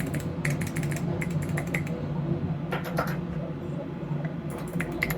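Irregular run of light, sharp clicks in small clusters, over a steady low hum.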